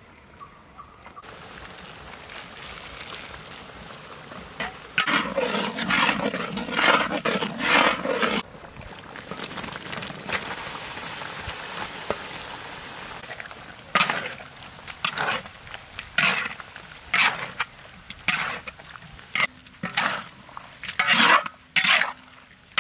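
A large wok of chicken gizzard curry, first a steady sizzling hiss and then a metal ladle scraping and stirring the gizzards in short strokes about once a second.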